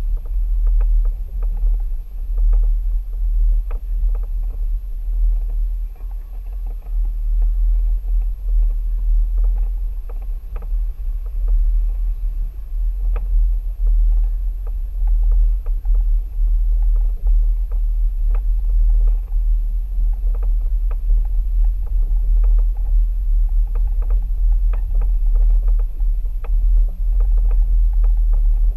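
Mercedes-Benz ML350 BlueTec SUV driving slowly over a rough dirt and gravel track: a steady low rumble with frequent small clicks and knocks from the tyres and running gear on the uneven surface.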